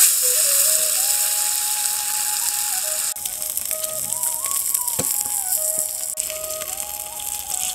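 Masala-coated fish sizzling in oil on a hot iron dosa tawa, the sizzle loudest at first and dropping to a softer, steady fry about three seconds in.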